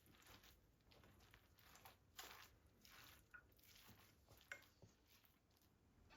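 Near silence with faint soft rustles and light taps, and one sharper small click about four and a half seconds in.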